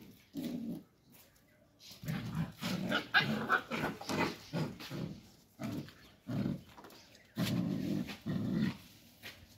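Dogs growling in play while an adult dog wrestles with puppies: a string of short, low growls with brief gaps, busiest a few seconds in.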